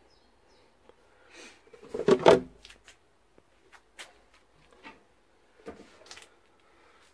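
Handling noises: a loud clatter about two seconds in, then several light knocks and clicks.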